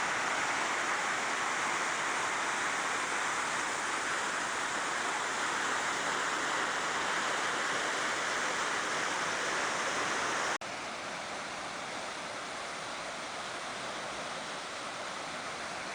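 Steady roar of Chitrakote Falls, the wide waterfall of the Indravati River. About ten seconds in it cuts abruptly to a slightly quieter stretch of the same rushing water.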